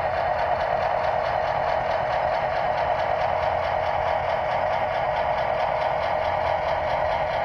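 Model diesel locomotive running slowly along the track: a steady mechanical whir from its motor, gears and wheels.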